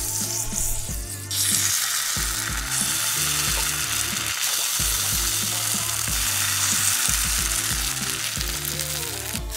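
Small dollops of pancake batter frying in browned butter in a small nonstick frying pan, a steady sizzle that sets in sharply about a second in. Low background music runs underneath.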